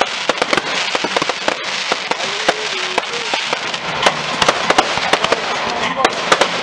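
Fireworks display going off: a fast, irregular string of sharp bangs and crackles from bursting aerial shells, with no break.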